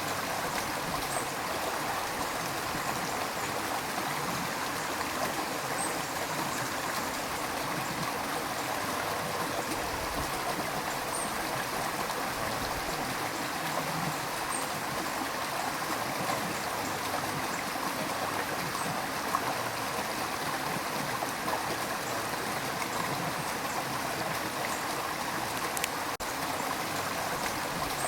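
River water rushing steadily, an even, unbroken flow. There is one brief dip in level near the end.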